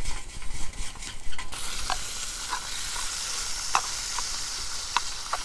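Bacon sizzling in a cast-iron Dutch oven over a campfire: a steady hiss with scattered pops, coming in about a second and a half in after a few light knocks and handling sounds.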